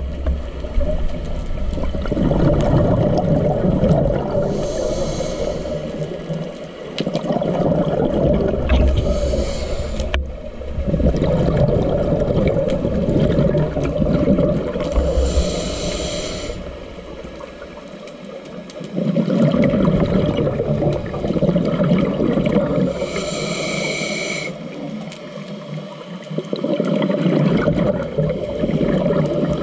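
A scuba diver breathing through a regulator underwater: a short hissing inhale, then a long rumbling rush of exhaled bubbles, repeating over several breaths.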